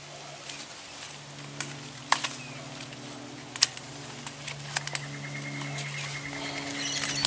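Sharp clicks and ticks of tie wire being wrapped and twisted around a steel star picket and barbed wire, the loudest about two and three and a half seconds in, over a steady low hum. A high trilling call, like a bird's, comes in the last two seconds.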